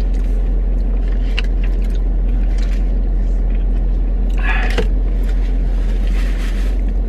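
Steady low rumble of a car idling, heard from inside the cabin. Faint eating sounds come through, and a short crinkle of a plastic bag about four and a half seconds in.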